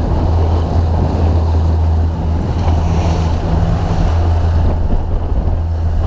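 Motorboat underway: a steady low engine drone, with water rushing and splashing along the hull and wind buffeting the microphone.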